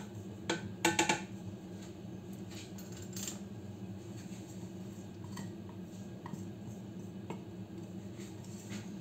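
A plastic bowl knocks a few times against the rim of a stainless-steel kitchen-robot jug as flour is tipped in, in the first second or so. Then a low steady hum with a few faint clicks.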